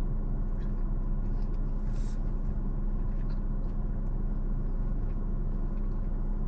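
Steady low hum of a car engine idling, heard from inside the parked car's cabin, with a few faint eating sounds over it, including a short crunch about two seconds in.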